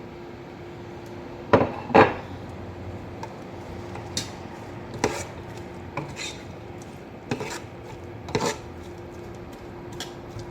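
A metal spoon knocks and scrapes against a karahi while chopped onions are stirred in hot oil. There are two loud clanks a little after a second and a half in, then lighter knocks every second or so. A steady faint hum with one constant tone runs underneath.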